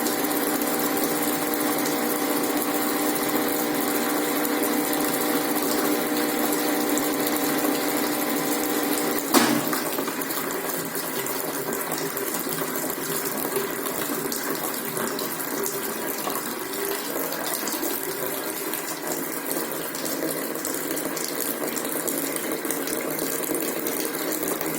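Brastemp Ative 11 kg washing machine working with water: a steady motor or pump hum over rushing water stops with a sharp click about nine seconds in, leaving only the sound of water moving.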